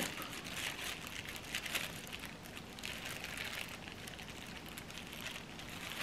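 Faint crinkling and small scattered ticks of disposable plastic gloves handling the pear as dried jujubes are pressed into its honey-filled hollow, over a low hiss.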